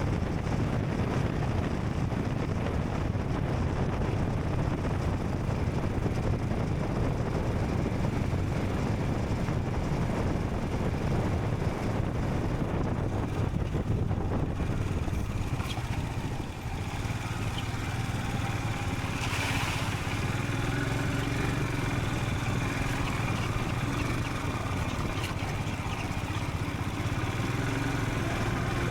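Royal Enfield Scram 440 single-cylinder engine running under way, mixed with wind and road noise. About halfway through, the rushing noise eases and the engine's steady low thrum comes forward.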